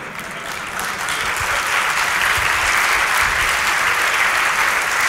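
Audience applauding, swelling over the first second or so and then holding steady.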